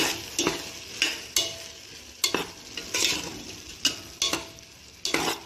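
Steel spoon stirring and scraping chopped onions and carrots around a stainless steel pot, clinking against the metal sides again and again at an uneven pace with brief ringing, over a light sizzle of frying.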